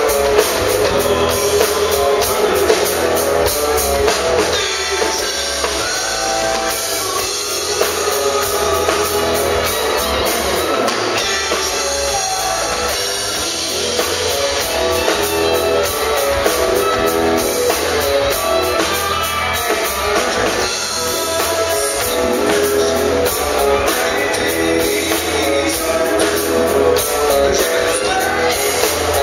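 Live rock band playing: electric guitar, electric bass and a drum kit keeping a steady beat, with a man singing over it.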